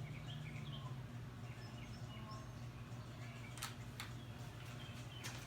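Faint bird chirps over a steady low hum, with two sharp clicks a little past halfway.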